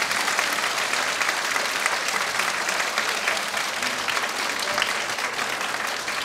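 Audience applauding: many hands clapping together in a dense, steady wash, with the music finished.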